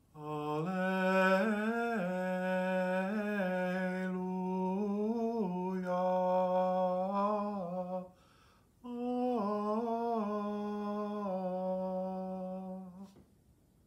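A single unaccompanied voice chanting in two long, flowing phrases, each note gliding into the next. The phrases are about eight and four seconds long, with a short breath between them.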